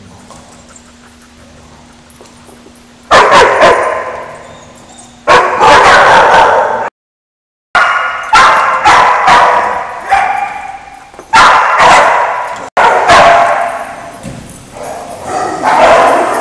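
Dogs barking and yipping in loud sharp bursts, each bark ringing on in a hard, tiled room. It is quiet for the first three seconds, then barking comes almost without pause, broken by a brief dropout of the sound about halfway.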